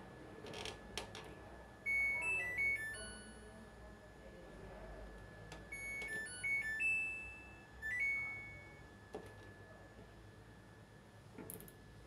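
Samsung front-loading washing machine's control panel playing its short electronic chime tune twice, about two seconds in and again about six seconds in, as its buttons are pressed. Faint clicks come near the start and near the end.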